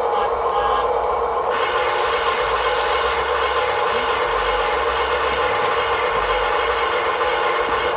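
Small electric motor of a toy construction vehicle running steadily with a continuous whine, its pitch holding level throughout.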